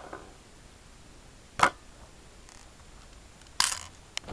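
Plastic clicks as 6 mm BBs are pushed into the magazine of a spring-powered airsoft CZ Scorpion vz61: one sharp click about a second and a half in, then a short rattle and a small click near the end.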